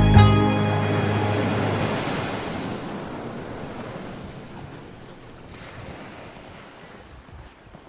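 Ocean waves washing against the shore, a steady rush that fades gradually away. The last chord of the background music rings out at the very start.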